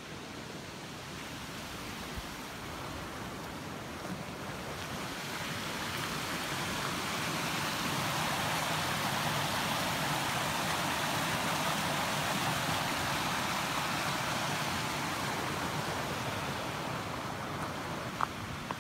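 Creek water rushing over rocks, a steady wash that grows louder through the middle and eases off toward the end.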